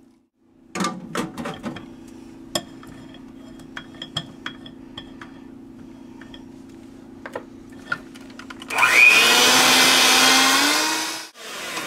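A rubber spatula taps and scrapes against a glass mixing bowl and the beaters in a series of sharp clicks. Near the end an electric hand mixer starts and runs loud for about two and a half seconds, beating sour cream into creamed butter and sugar, then stops.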